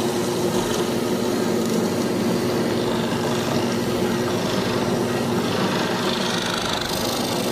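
Drill press running with a hollow-chisel mortising attachment, its auger and square chisel cutting a mortise into wood: a steady motor hum with cutting noise.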